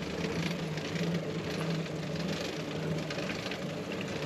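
Bicycle riding along: a steady whir of tyres rolling and the chain and drivetrain turning.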